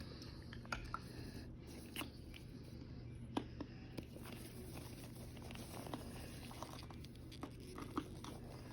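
Faint, scattered small clicks and soft crackles from microwaved starch chunks, over a low steady hum.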